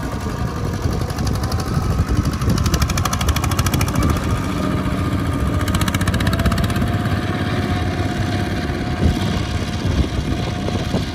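Two-wheel walking tractor's single-cylinder diesel engine running steadily with a rapid, even pulsing beat as it pulls a loaded trailer across a rice field.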